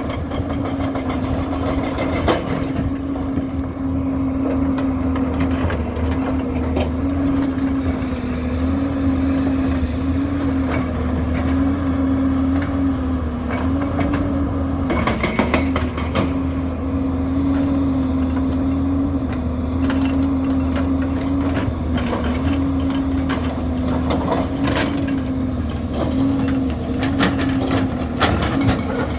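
Heavy construction machine's engine running steadily under light load, its pitch wavering slightly, with occasional sharp knocks.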